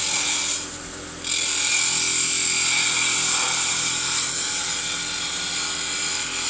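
Continental spindle gouge cutting a spinning wooden spindle on a Euro 1500 lathe, rolling a ball: a steady hiss of shavings coming off, broken briefly about a second in, over the lathe motor's steady hum.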